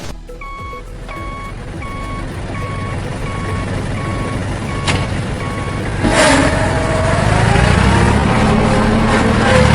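A vehicle's reversing alarm beeping evenly, about twice a second. After about six seconds it stops and the engine picks up, rising in pitch as the vehicle accelerates.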